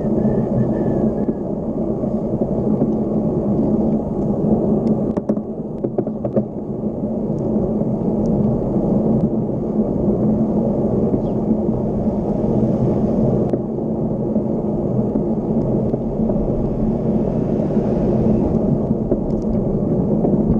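Wind rumble and road noise on a handlebar-mounted camera on a moving bicycle: a steady, loud, low roar, with a few short knocks from bumps in the road around five to six seconds in.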